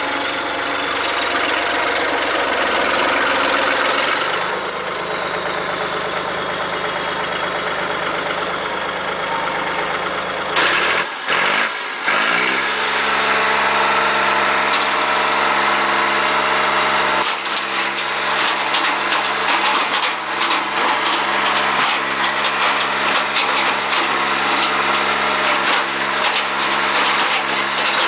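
Big John Deere tractor's diesel engine running steadily, its pitch dipping and then rising as it revs up about eleven seconds in. From about seventeen seconds on, rapid sharp cracks and crunches sound over the engine as the microwave is crushed.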